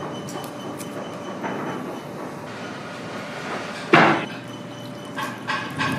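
A leather work boot pushed down into a stainless steel tank of liquid, with one sharp knock about four seconds in, over a steady background noise.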